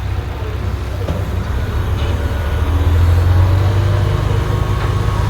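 Diesel engine of heavy earthmoving machinery running with a steady low drone, which gets louder about halfway through as the machine works or comes closer.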